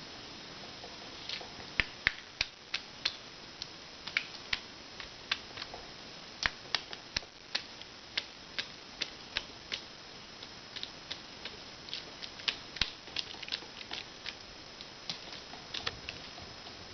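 Woodpecker pecking at wood: a series of sharp, irregularly spaced taps, about two or three a second, beginning about a second in.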